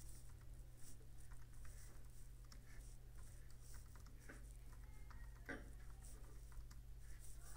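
Faint, irregular clicks of computer keys being typed, over a steady low hum.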